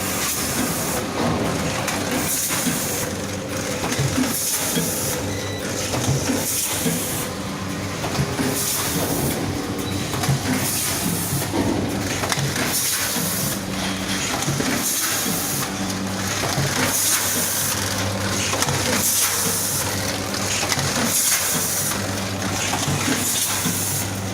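Eight-station doypack pouch packaging machine running: a steady mechanical hum with short hisses of air repeating about once a second as it cycles.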